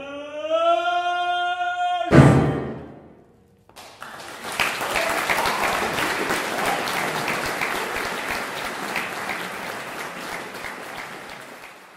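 A singer holds a loud high note, then a very loud final piano chord is struck about two seconds in and rings out. After a short silence an audience applauds, fading near the end.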